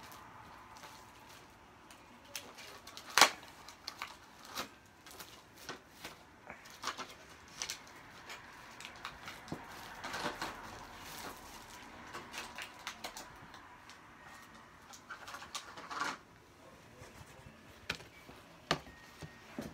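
Scattered taps, clicks and knocks of small objects and paper being handled. A single sharp knock about three seconds in is the loudest.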